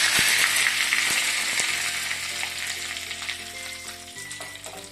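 Curry leaves sizzling in hot oil with mustard seeds and urad dal in a small tadka pan, the tempering for a chutney. The sizzle is loud at first and fades steadily as the leaves fry.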